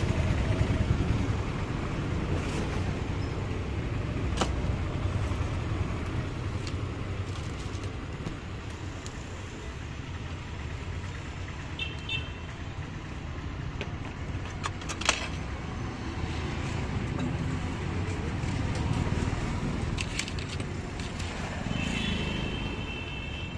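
Steady rumble of street traffic, with scattered sharp clicks and taps of a spoon and knife on a wooden board and two brief high-pitched beeps, about halfway and near the end.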